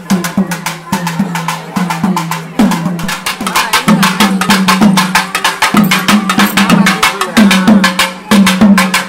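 Folk barrel drums beaten fast with sticks in a procession rhythm. A low drum tone swoops in pitch on the accented beats, about twice a second.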